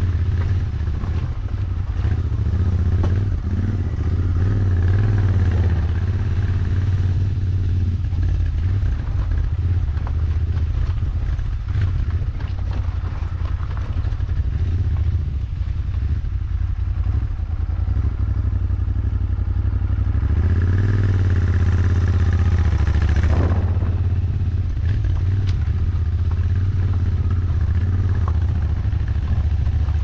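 Royal Enfield Interceptor 650's 648 cc parallel-twin engine running while the bike is ridden over a dirt trail, the revs rising and falling with the throttle. Near the end one longer rev rise is cut off sharply.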